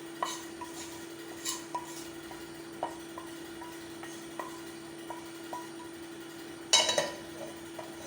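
A spoon scraping and tapping against a dish while spreading a pizza filling: light, scattered clicks, with a louder clatter near the end. A steady low hum sits underneath.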